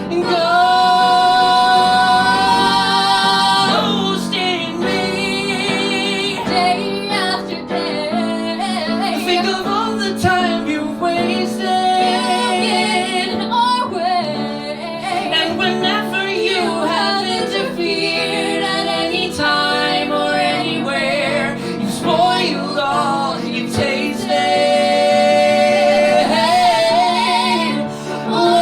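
Show-tune singing: a woman's voice holds long notes with vibrato over instrumental accompaniment.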